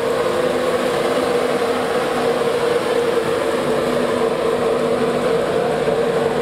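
Class 91 electric locomotive passing slowly, giving a steady electrical hum and a held whine over the rumble of the train.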